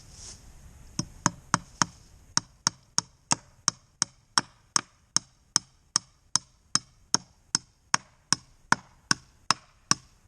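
Hammer driving a nail into a wooden step: a steady run of sharp blows, about three a second, starting about a second in.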